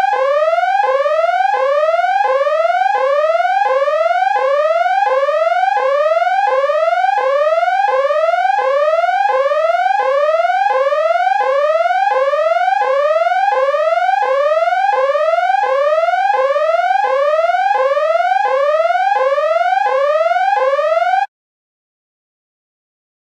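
Electronic siren in a fast rising whoop: each sweep glides up and snaps back down, about three sweeps every two seconds. It cuts off suddenly near the end.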